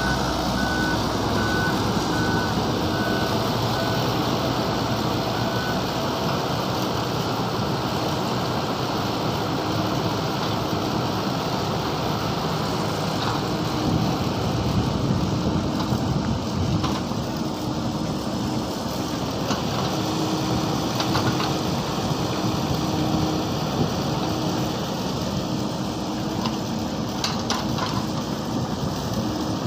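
Mini excavator's engine running steadily, with an intermittent beeping alarm: short high beeps for the first few seconds, then lower pulsing beeps through the second half.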